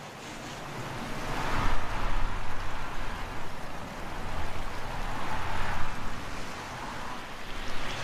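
Gusting wind, a rushing noise that swells about two seconds in and again around five to six seconds, easing between the gusts.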